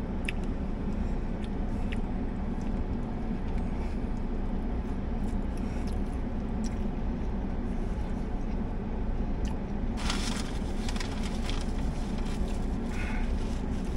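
Steady low hum of a car's cabin with the car running, under soft chewing of a crispy fried chicken sandwich. About ten seconds in comes a brief crackling rustle, like a paper wrapper or napkin being handled.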